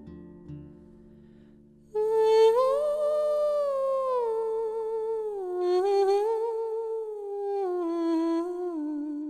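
Lyrical female voice singing a slow, unaccompanied line with vibrato. It enters about two seconds in, once the last flamenco guitar notes have died away, rises briefly, then steps down and holds a low note.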